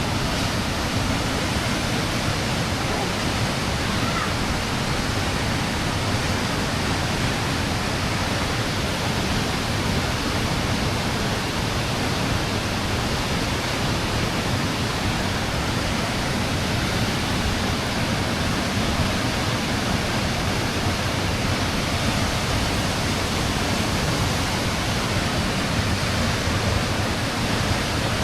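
Waterfall pouring steadily into its pool, a constant full rushing of water.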